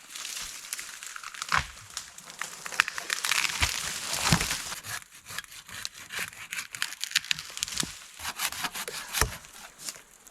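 Rustling and crackling of wood and brush being handled, with a few dull knocks, the loudest about four seconds in.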